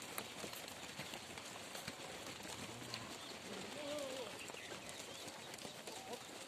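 Sheep and goats moving about: scattered hoof clicks over a steady outdoor hiss, with one faint short call about four seconds in.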